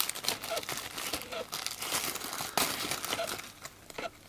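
Clear plastic packaging bag crinkling and rustling in the hands as it is opened and a small key ring is pulled out, dying down near the end.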